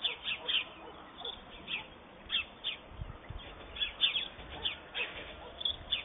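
Small birds chirping: short, downward-sweeping calls repeated irregularly, sometimes two or three in quick succession, heard through a security camera's narrow-band microphone.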